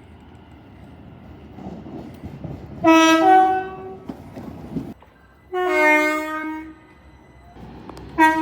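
Train horn sounding two blasts of a few stacked notes, each about a second long, over the rumble of a passing train. A third blast starts near the end.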